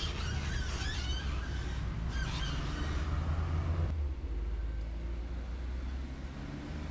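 Low, steady rumble of a running vehicle that eases about four seconds in, with high warbling chirps over it during the first three seconds.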